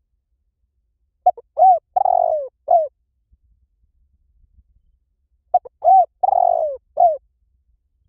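Spotted dove cooing: two calls about four seconds apart, each made of four or five short coos, with a longer note in the middle that falls in pitch.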